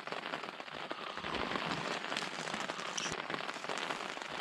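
Steady rain pattering on the tent, heard from inside: a dense, even spatter of many small drops on the fabric.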